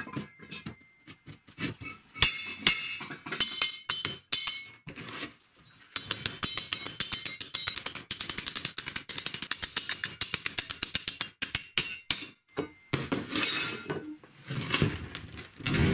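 Old car strut and its steel spring-seat plate clinking against each other on a wooden workbench: scattered ringing metal clinks, then a fast, even run of rattling clicks lasting about five seconds as the loose plate wobbles on the strut tube. Near the end a rougher rumble as the strut rolls on the wooden bench.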